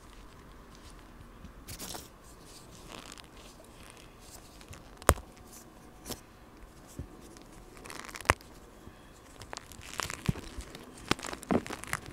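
Dyed gym chalk topped with cornstarch being crushed and crumbled by hand: dry, powdery crunching. Two sharp cracks about five and eight seconds in, and denser crunching near the end.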